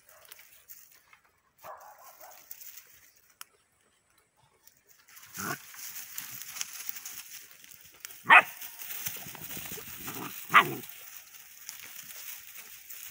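Borador puppies barking in play: three short, sharp barks, the two loudest about eight and ten and a half seconds in.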